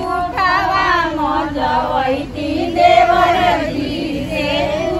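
A group of women singing together in chorus, with held, wavering notes.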